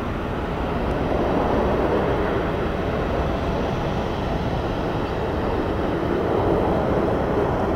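Jet airliner engines running, a steady rushing noise that swells slightly twice.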